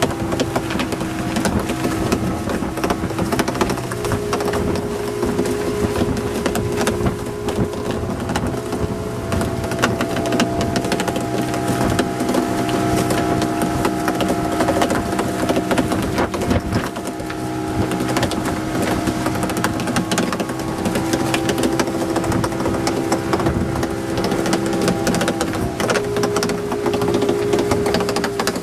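Mullet boat's engine running steadily, its pitch stepping up for a few seconds twice, under continuous clattering and knocking.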